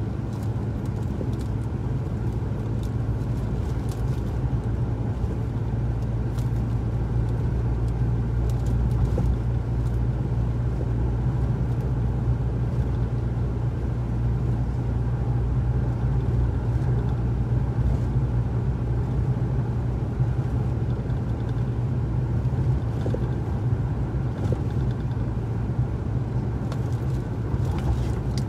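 A car driving at a steady speed, heard from inside the cabin: an even, low rumble of engine and road noise with a few faint ticks.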